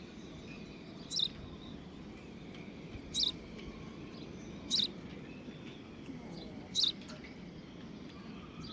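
Young birds nesting inside a sailboat's boom giving short, high chirps, four of them about every one and a half to two seconds.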